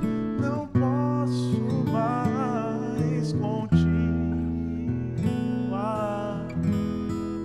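Acoustic guitar strummed as accompaniment to a song, with a voice holding long wavering notes twice.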